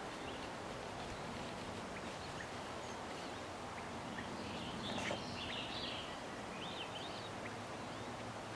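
Outdoor ambience: a steady background hiss with a few short bird chirps, clustered a little past the middle and again around seven seconds in.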